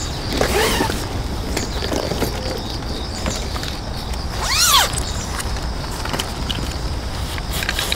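Wind on the microphone as a steady low rumble. About four and a half seconds in comes a single short call that rises and falls in pitch.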